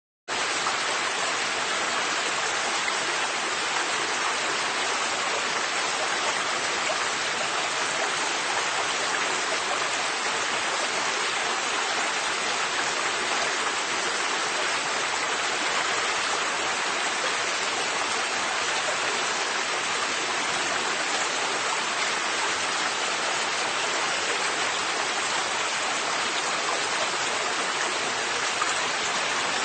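River water flowing and rushing steadily, an even hiss of moving water with no changes.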